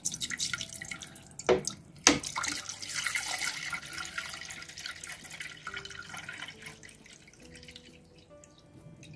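Water pouring from a plastic bottle into an empty stainless-steel steamer pot, splashing on the metal. It is loudest for the first few seconds and grows softer after about four seconds. Two sharp knocks come about 1.5 and 2 seconds in.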